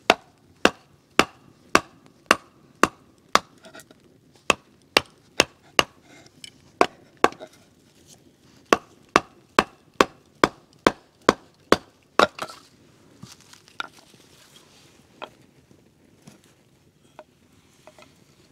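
Knife being batoned through a wooden branch to split it in two: sharp wooden knocks, about two a second with a couple of short pauses, stopping around twelve seconds in, followed by a few light taps.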